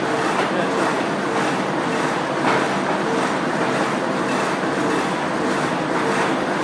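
Horizontal packaging machine and its chain-driven infeed conveyor running steadily, a continuous mechanical clatter with a faint recurring hum and a few light clicks, as cups of play dough are carried into the wrapping section.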